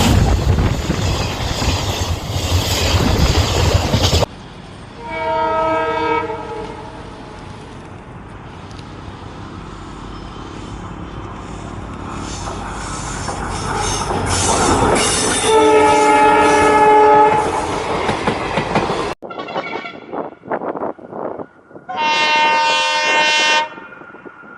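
Indian Railways locomotive horns and passing trains across several spliced clips. First a train rumbles past close by until a sudden cut, followed by a horn blast of about two seconds. Then a train's noise builds as it approaches and it sounds another horn blast; after a second cut come clattering wheels and a last horn blast near the end.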